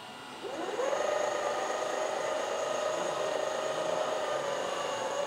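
A CROSSRC TL4 Iron Bull 1/8-scale RC tractor's electric motor and gearbox whining as it drives backward at full throttle in the low-speed gear. The pitch rises as it speeds up about half a second in, then holds steady.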